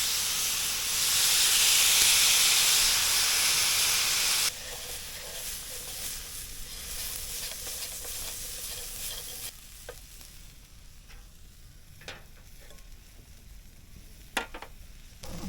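Fujinomiya yakisoba of noodles, sausage and cabbage frying in a pan. It sizzles loudly for the first four or so seconds, then sizzles more quietly, and in the last third a few sharp clicks of a cooking utensil sound against the pan.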